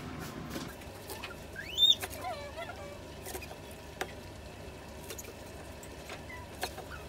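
Chef's knife chopping green onions on a wooden cutting board, a few scattered knocks. About two seconds in, a toddler lets out a high, rising squeal followed by brief babbling.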